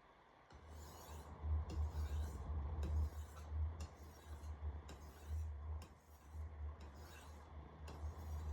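Wüsthof Classic chef knife's steel edge drawn across a wet whetstone in a run of about a dozen short, light rasping strokes, each about half a second apart. These are deburring strokes, made with less pressure as sharpening progresses.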